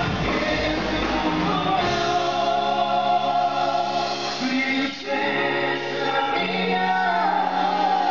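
A cueca urbana song: several voices singing over the band, holding long notes, with a brief break about five seconds in.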